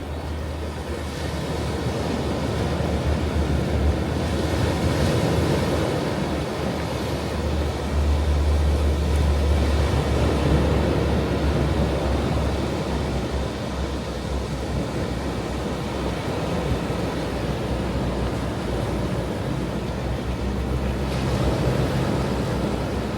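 Ocean waves breaking and washing on a shore, a continuous surf with slow swells in loudness, and a deep low rumble that may be wind on the microphone.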